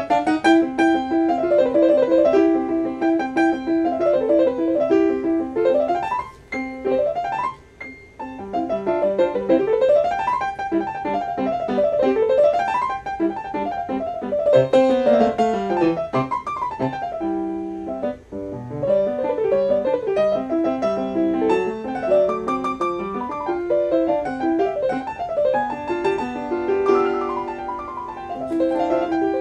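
Solo grand piano, Yamaha, played with fast runs sweeping up and down the keyboard. The playing breaks off briefly a few times, about six to eight seconds in and again around eighteen seconds.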